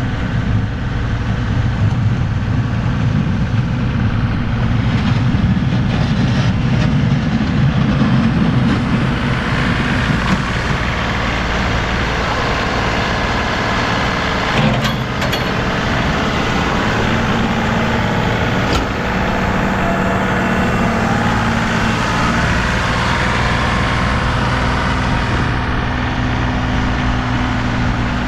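Compact tractor engine running steadily under load, its note shifting slightly about halfway through.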